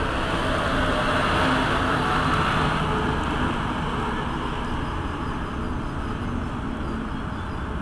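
Steady whirring hum of a Deutsche Bahn ICE high-speed trainset standing at the platform, its cooling fans and electrical equipment running, with a few faint steady tones. It eases slightly over the seconds.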